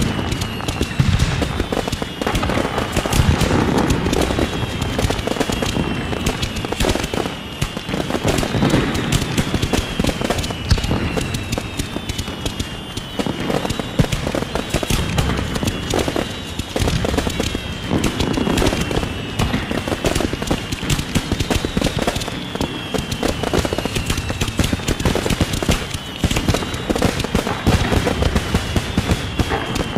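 Many fireworks going off across a city: a constant dense crackle of pops and bangs. Through it runs a high whistle that falls in pitch, repeating every second or two.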